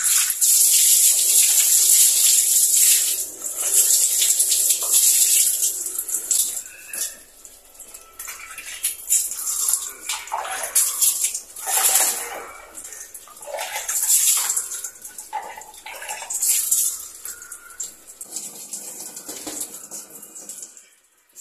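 Water poured from a plastic dipper over a lathered cat, splashing onto and through a wire cage as the shampoo is rinsed off. It starts with one long pour and goes on in several shorter pours with pauses between them.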